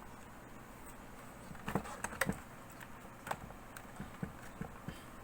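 Scattered light clicks and taps from the plastic case of a laptop being handled and fitted back together, about half a dozen irregular knocks.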